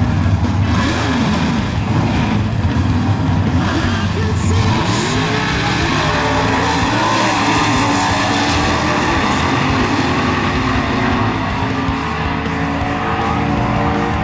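Drag-racing cars' engines revving through staging and launching off the start line, with music playing over them.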